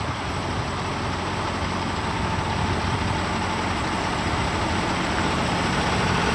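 Heavy diesel engine of a parked semi truck idling steadily, growing a little louder toward the end.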